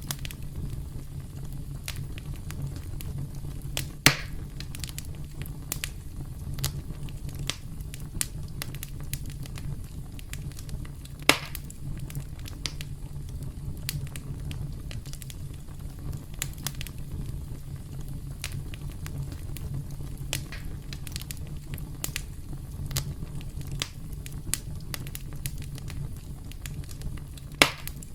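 Campfire burning, with a steady low rumble and frequent irregular crackles and pops; three louder sharp pops stand out, about four, eleven and twenty-seven seconds in.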